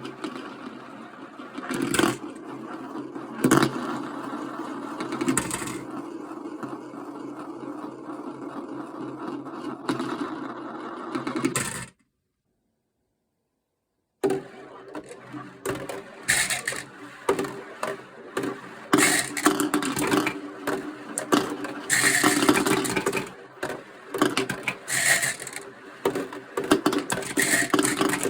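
Marbles rolling down a plastic toy marble-run slope: a steady rolling rumble with sharp clicks as they drop and strike the track. About twelve seconds in it cuts to silence for two seconds, then comes back with busier clicking and clattering.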